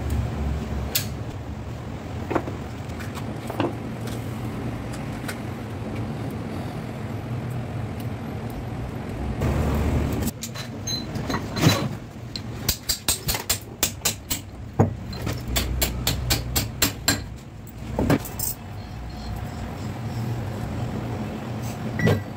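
Sharp metal clicks and knocks as gears and synchro rings are fitted by hand onto a truck gearbox mainshaft, with a quick run of about ten metal taps around the middle. A steady low hum runs underneath.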